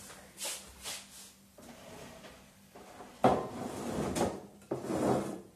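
Cookware being handled on a kitchen counter: a sharp knock about three seconds in, followed by a rough scraping noise lasting over a second, then a second, shorter scrape near the end.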